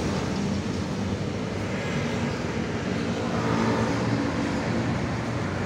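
Road traffic: trucks and cars driving past with a steady engine hum, one vehicle passing close and louder about three and a half seconds in.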